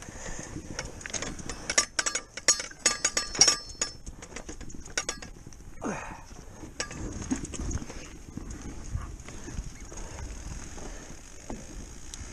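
Wooden five-bar field gate being handled: a quick run of metal clinks, rattles and knocks from the latch and gate from about two to five seconds in, then a single falling squeak about six seconds in.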